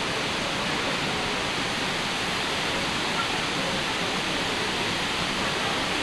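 Steady rush of a waterfall falling close by, an even roar of water with no let-up.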